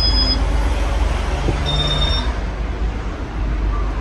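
Casablanca Halogen Star ceiling fan running with five blades, its moving air buffeting the microphone as a steady low rumble and rushing hiss.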